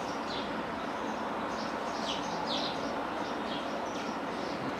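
Small birds chirping, about five short chirps that fall in pitch, over a steady background hiss.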